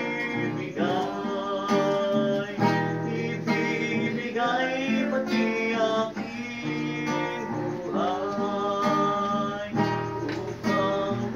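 Acoustic guitar strummed in steady chords, the chords changing every second or two.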